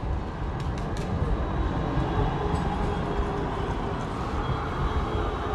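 Croydon Tramlink tram running past on street track: a steady rumble with a faint whining tone, over general street noise.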